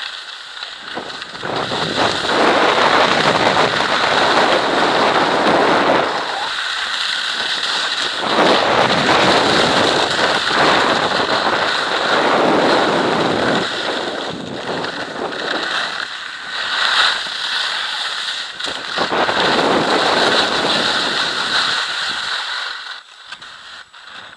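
Skis carving and scraping over hard-packed snow at speed, swelling in surges with each turn, mixed with wind rushing over the camera's microphone. The noise drops away near the end.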